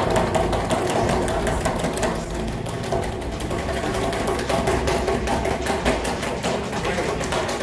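A fast, continuous drum roll with a steady tone underneath, the suspense roll before a winner is named.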